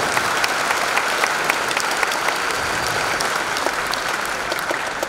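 Large audience applauding, the clapping thinning out near the end.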